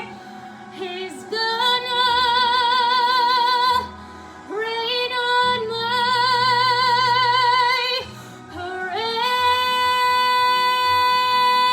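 A woman's voice belting a show tune in three long held notes with wide vibrato, each swooping up into the note; the last climbs into a long high sustained note. Steady instrumental accompaniment sits underneath.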